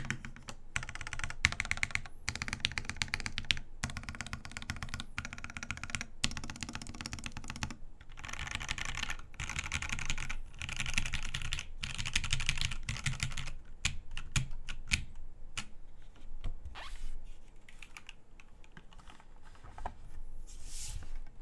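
Mechanical keyboard being typed on: an NRD Kaze prototype case, top-mounted, with Gateron Ink Black linear switches lubed with Krytox 205g0 on an aluminium plate, fitted with SAU-profile dye-sub keycaps. Fast, continuous typing for about thirteen seconds, then slower, scattered keystrokes toward the end.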